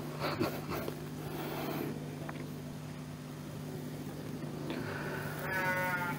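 A pause between phrases of a live Quran recitation over a sound system: a steady low hum with faint background noises, and a short pitched sound in the last half-second.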